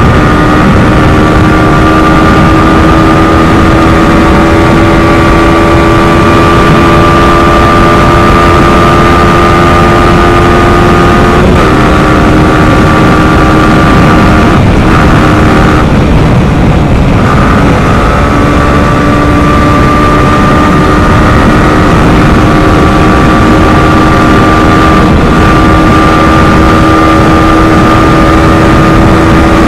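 Yamaha R15 V4's 155 cc single-cylinder engine running at high revs under full throttle as the bike pulls slowly toward its top speed, a steady drone over rushing wind. The pitch dips slightly twice, near the middle.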